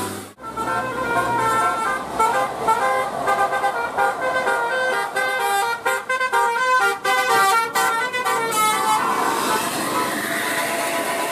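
Bus telolet horn, a multi-tone musical horn, playing a tune of short stepped notes that change quickly in the middle, giving way to a steady hiss of noise near the end.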